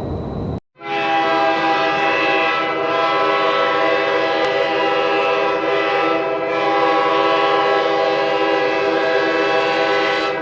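Locomotive air horn of GBCR 4619 sounding one long, steady blast. It starts just under a second in, after a brief cut to silence, and is still sounding at the end.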